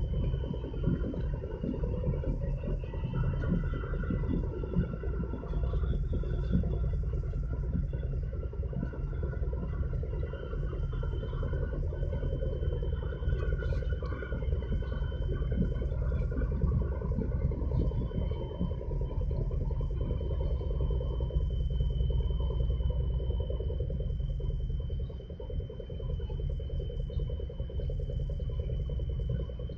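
Low, steady rumble of a large container ship's engines and its harbour tug working across the water, with a faint thin whine held high above it through the second half.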